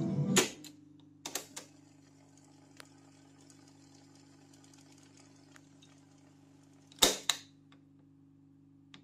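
Transport keys of an Akai GXC-60D cassette deck clunking as they are pressed. A loud clunk about half a second in stops the tape's music playback, followed by a couple of lighter clicks. Then a low steady hum, and two more clunks in quick succession about seven seconds in.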